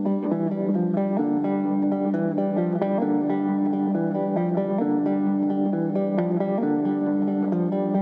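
Background music: acoustic guitar playing a run of plucked notes over a sustained low note.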